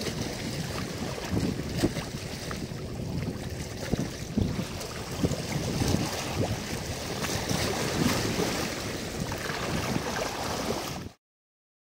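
Wind buffeting the microphone over choppy open water, with waves lapping; the noise comes in uneven gusts and cuts off abruptly near the end.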